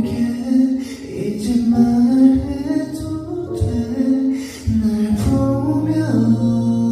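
A male voice singing a slow, soft song over instrumental accompaniment.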